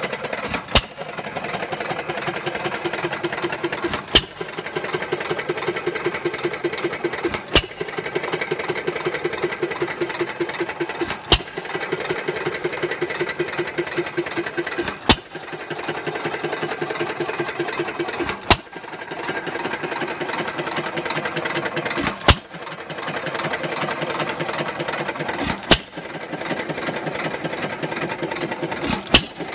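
1919 Jaeger hit-and-miss engine running under the load of two ice cream freezers: a sharp bang about every three and a half seconds as it fires, with a steady rhythmic clatter as it coasts between firings.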